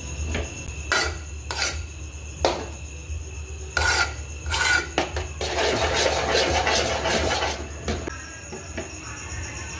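Metal spoon scraping against an aluminium pot while stirring a thick mass of homemade butter: a few separate scrapes, then a couple of seconds of continuous rapid scraping around the middle.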